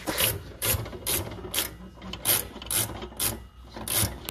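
Hand ratchet being worked back and forth to tighten a bolt on a metal battery box, its pawl clicking in short rasping strokes about twice a second.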